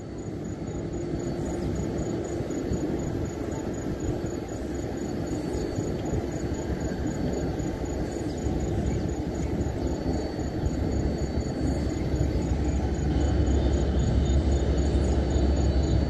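Diesel freight locomotive approaching along the track, its engine rumble growing steadily louder, with a deeper low rumble coming in about thirteen seconds in.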